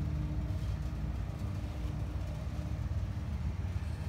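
Steady low hum and rumble of a machine, with a faint constant tone that fades near the end.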